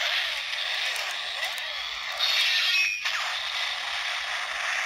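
The DX Engine Blade toy's Engine Memory playing a finishing-move sound effect through its small built-in speaker after the trigger is pulled. It is a thin, hissing electronic effect with a brief break about three seconds in, and it fades near the end.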